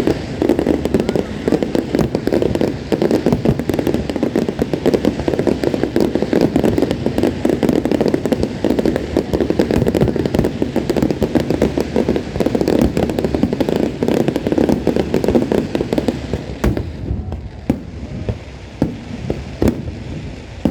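Aerial fireworks going off in a dense, continuous barrage of bursts and crackling, thinning to scattered separate pops about three-quarters of the way through.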